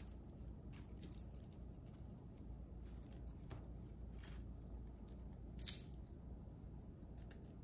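Faint handling of costume jewelry: scattered small clicks and light rustles as pieces are picked up and moved, with one sharper click about two-thirds of the way through.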